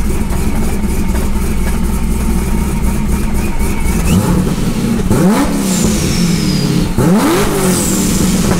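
Supercharged LS3 V8 with an aftermarket cam idling, then revved twice, about four and seven seconds in. Each rev climbs and drops back to idle, with a high whine falling away after it.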